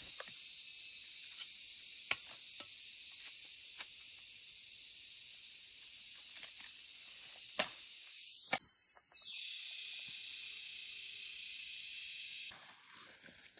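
Steady high-pitched hiss of an insect chorus, broken by a few sharp clicks and snaps. The hiss cuts off suddenly near the end.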